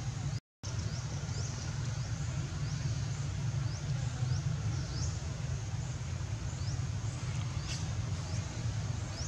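Steady low rumble with a faint, high, short chirp repeating about twice a second; the sound cuts out completely for a moment about half a second in.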